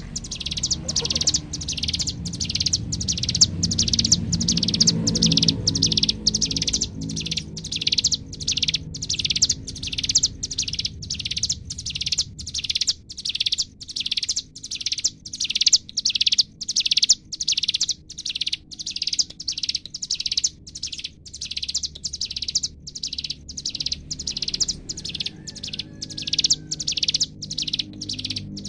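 Ciblek gunung (a prinia) singing its "bren" song: a long unbroken run of high, buzzy notes repeated evenly about twice a second, over a low steady background hum.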